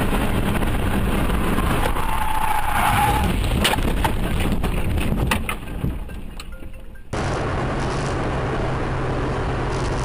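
Inside a car: engine and road noise while driving, then a brief squeal and a series of sharp bangs and cracks about three to five seconds in as the car crashes, after which it goes quieter. About seven seconds in, the sound cuts abruptly to another car's steady engine and road noise.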